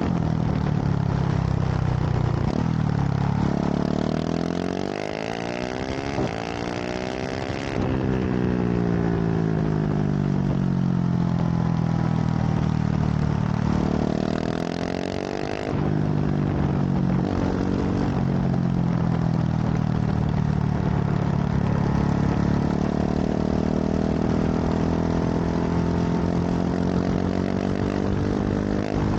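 KTM 690 SMC R single-cylinder engine through a full LeoVince exhaust under way, revving up and down. Its pitch climbs and cuts off sharply about a third and again about halfway through, sinking slowly after each, then runs at steadier revs.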